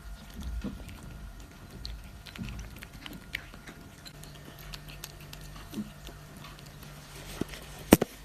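A British Shorthair cat eating, with soft, irregular chewing and small clicks of food and bowl. A single sharp click just before the end is the loudest sound.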